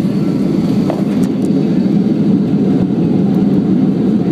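Steady low rumble inside the cabin of a Boeing 737 rolling down the runway just after landing.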